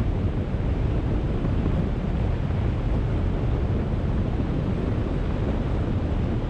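Steady wind noise buffeting a GoPro's microphone in the airflow of a paraglider in flight, a continuous rumble heaviest in the low end.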